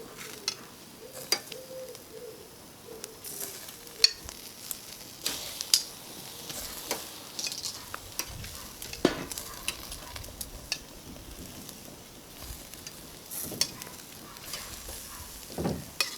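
Chicken and vegetable pieces sizzling on a charcoal barbecue grate, with frequent sharp clicks and knocks as pieces are set on the metal grill.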